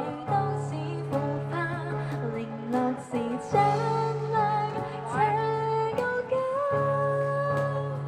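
A woman singing a pop song into a microphone, accompanied by a strummed acoustic guitar, both coming through a small PA.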